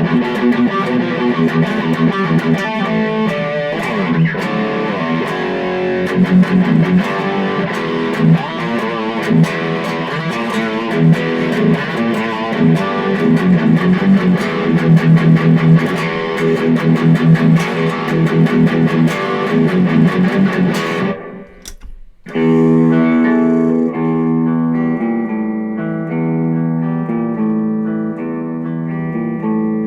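Electric guitar played through a Boss Katana Mini amplifier on its high-gain setting: busy, heavily distorted picked riffing. About 21 seconds in the playing drops out for a moment, then resumes with held notes and chords in a less distorted tone.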